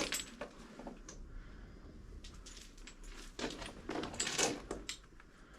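Faint scattered clicks and scuffs, with a denser, louder run of scuffing from about three and a half to nearly five seconds in.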